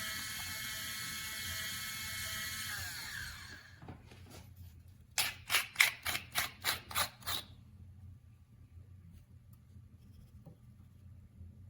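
SHARDOR Electric Burr Coffee Grinder 2.0 motor running steadily, then switching off and winding down in pitch about three seconds in. A couple of seconds later comes a quick run of about eight sharp clicks.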